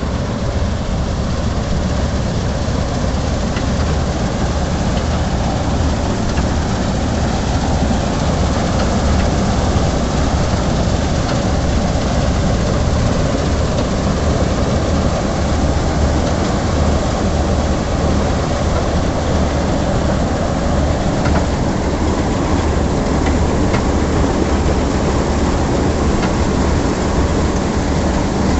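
Combine harvester running steadily while it harvests wheat: engine drone mixed with the noise of the cutting and threshing machinery, loud and unbroken.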